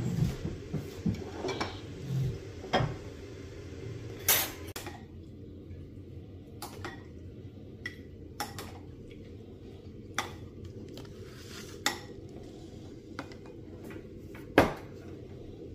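Porcelain soup spoon and ceramic bowls clinking as soup is spooned into a small bowl: scattered light clinks, the sharpest one near the end.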